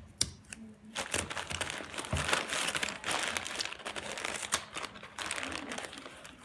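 Crumpled newspaper crinkling and crackling under the hands as masking tape is wrapped and pressed onto a wadded-paper armature, with many small irregular clicks.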